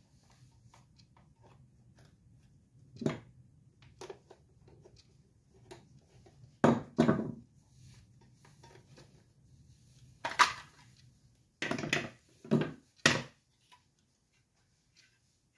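Plastic parts of a pistol-grip RC transmitter being handled and taken apart, with a screwdriver nearby: scattered small clicks and a handful of louder knocks of plastic against plastic and the wooden table.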